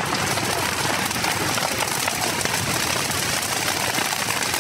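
A burning sugarcane field: fire giving a dense, steady crackle.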